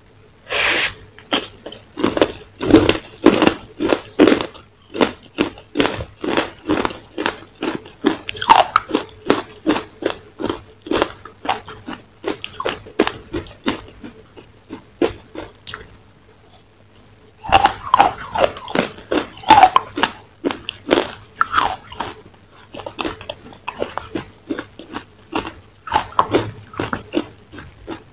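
Close-miked crunchy biting and chewing of a crisp-coated dessert, in quick crackling crunches. The crunching pauses for a few seconds past the middle, then starts again with a loud bite.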